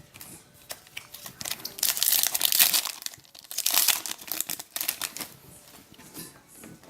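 Plastic wrapper of a trading card pack crinkling as it is torn open by hand, in irregular crackling bursts, the loudest about two and four seconds in.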